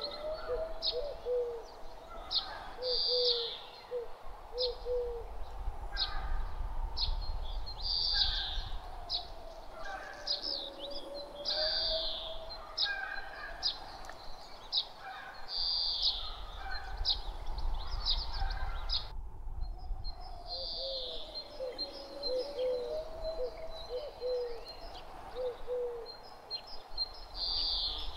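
Forest ambience of birds chirping repeatedly in short high calls, with runs of short low notes from another bird, over a low rumble of light breeze.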